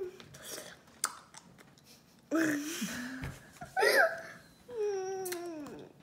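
A young girl's wordless cries at an intensely sour candy: a short strained sound a little past two seconds, a high squeal about four seconds in, then a long cry that falls in pitch, mixed with laughter.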